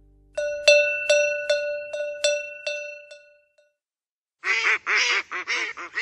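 A cowbell rung about eight times in quick succession, each stroke ringing on and the run fading out: the cue to turn the page. After a short pause, a duck quacks in a rapid run.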